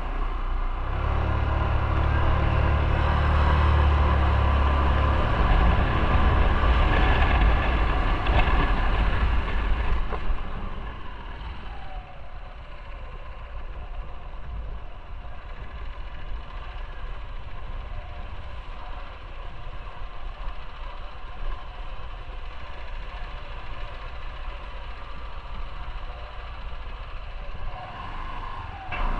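Motorcycle engine pulling under load up a steep street, then easing off about ten seconds in to a quieter, low-speed run as the bike rolls slowly through narrow lanes.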